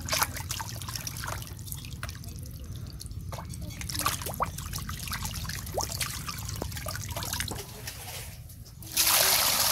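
Water dripping and trickling with many small clicks and splashes over a steady low rumble. About nine seconds in comes a short, loud rush of water being poured.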